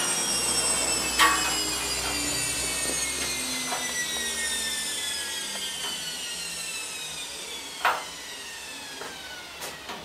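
Washing machine drum and motor, out of their cabinet, spinning down. Their whine falls steadily in pitch and fades, with a sharp knock about a second in and another near eight seconds.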